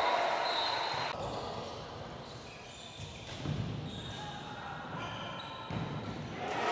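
Handball game sounds on an indoor court: the ball thuds on the floor and shoes squeak, with a few voices calling out.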